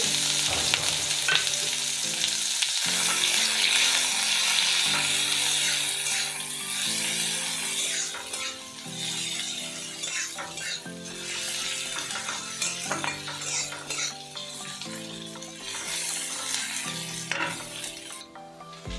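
Chopped onions sizzling and frying in hot mustard oil in a kadai, stirred with a spatula that scrapes and clicks against the pan now and then. The sizzle is loudest for the first several seconds and then eases off.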